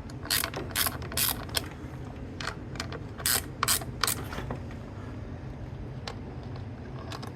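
Hand ratchet wrench clicking in short bursts as it backs off a clutch spring nut on an early Harley-Davidson Sportster clutch. The bursts come several a second for the first four seconds or so, then thin out to the odd click.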